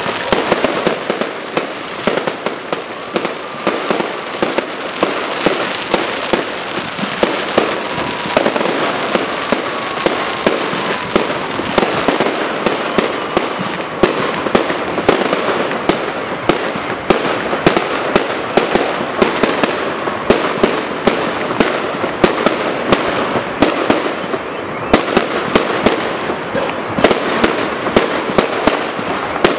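Fireworks display: a dense, unbroken run of sharp bangs from bursting aerial fireworks, several a second, over continuous crackling.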